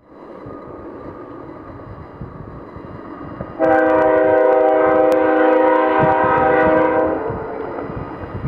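GE AC4400CW diesel locomotive running as it approaches, growing louder, then sounding one long air-horn blast of about three and a half seconds, starting a few seconds in.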